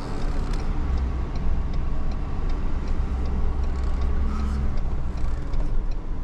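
Vehicle engine and road rumble heard from inside the cab while driving slowly; the low rumble grows heavier for a few seconds in the middle.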